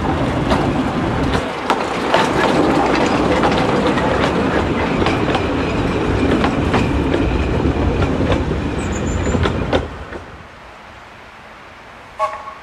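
Narrow-gauge steam locomotive Corris Railway No 7 and its carriages passing close by, wheels clicking over the rail joints. The sound stops abruptly about ten seconds in, leaving a much quieter outdoor background with one brief sharp sound near the end.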